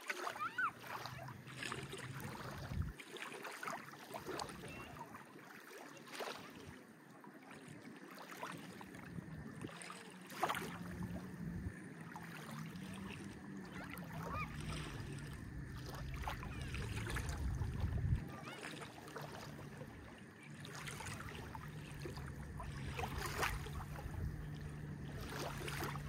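Small waves lapping and splashing at the water's edge, with a low steady engine hum under them that swells and fades, as of a motorboat passing on the water.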